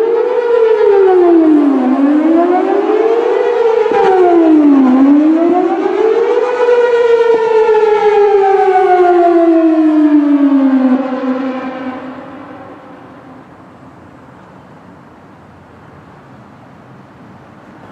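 Whelen WPS-4008 electronic outdoor warning siren sounding a test wail that rises and falls about every two and a half seconds. It then sweeps down in one long fall and fades out about eleven to twelve seconds in, leaving faint background noise.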